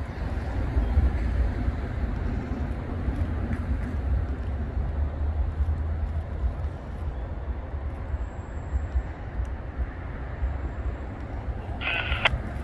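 Steady outdoor background noise: a low, fluctuating rumble under an even hiss, with no passing train.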